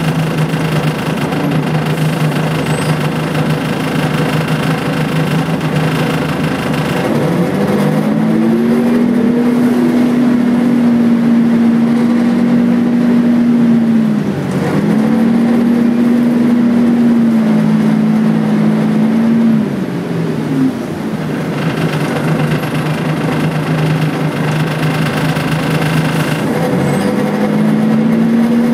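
Volvo B10BLE bus's rear-mounted six-cylinder diesel, loud inside the saloon, running steadily at low revs, then pulling away about seven seconds in with its note rising into a steady whine. The note dips briefly about halfway through, drops back about twenty seconds in, and rises again near the end as the bus accelerates once more.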